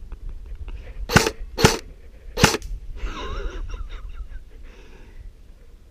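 Airsoft rifle firing three single shots, each a sharp crack: the first two about half a second apart, the third nearly a second later.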